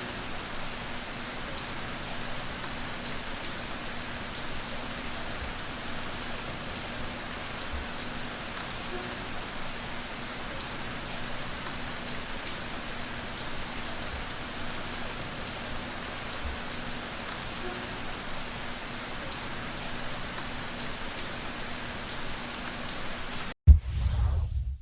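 Steady rain falling: an even hiss with scattered faint drop ticks and a faint steady hum beneath. About a second before the end the rain cuts off abruptly and a short, loud, low burst of sound follows.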